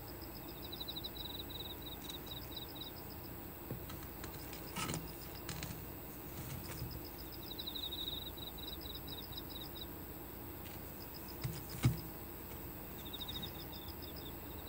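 Crickets chirping in repeated groups of short, high pulses that come and go several times, with a couple of soft knocks on the wooden cutting board.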